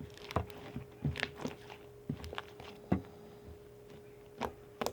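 Butter slime being squeezed and poked by hand, giving irregular soft sticky clicks and pops, the loudest about three seconds in, over a faint steady hum.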